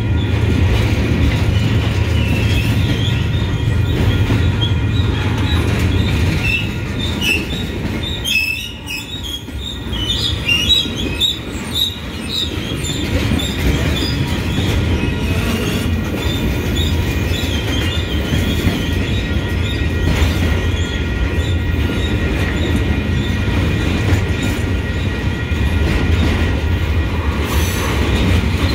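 Freight train of empty flatcars rolling past at a grade crossing: a steady low rumble of wheels on rail, with the wheels squealing in high chirps and screeches. The sound drops away briefly about eight seconds in.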